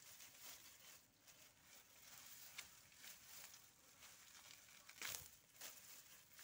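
Faint rustling and crinkling of cut lemongrass stalks and dry leaves being handled and gathered into a bundle, with a louder rustle about five seconds in.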